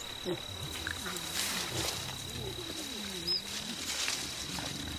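A steady high insect drone under low, wavering rumbles from mountain gorillas resting and feeding in the forest.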